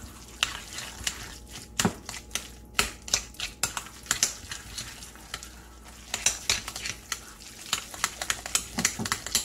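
A metal spoon stirring and mashing canned salmon mixture in a glass bowl: quick, irregular clinks and scrapes of the spoon against the glass.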